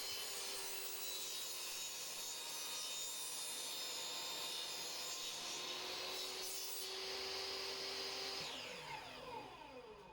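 Table saw running steadily. About eight and a half seconds in it is switched off, and the motor and blade wind down with a falling pitch.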